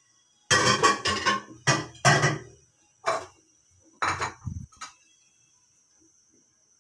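Metal cookware and utensils clanking in a kitchen: a quick run of clanks over about two seconds, then a few single knocks about three and four seconds in.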